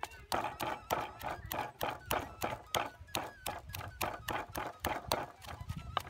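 Wooden pestle pounding cassava leaves in a mortar, about three sharp thuds a second in an even rhythm, as the leaves are crushed into a green paste.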